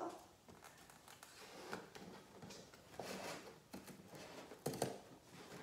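Scissors cutting through the packing tape on a cardboard box, with the cardboard rustling and scraping under the hands: a string of short, faint, scratchy sounds at irregular intervals.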